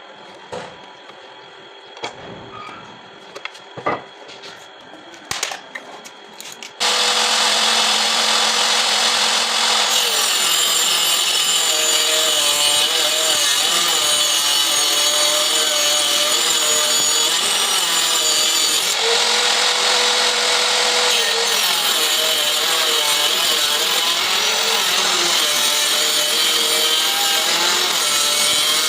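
A few scattered knocks and clicks, then about seven seconds in a hand cutter mounted as a homemade table saw starts abruptly and runs loudly, sawing wood, its pitch wavering up and down as the blade takes the load.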